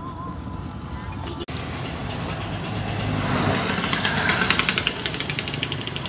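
Motor traffic on a town street heard from a moving vehicle: steady engine and road rumble, with a rapid clatter of engine strokes growing louder about four seconds in.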